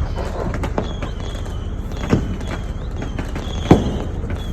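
Fireworks going off: several sharp bangs over a steady background din, the loudest about three-quarters of the way through.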